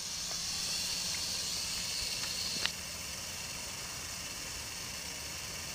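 Western diamondback rattlesnake rattling its tail in a steady, high buzz, a defensive warning; the buzz drops a little after a single sharp click about halfway through.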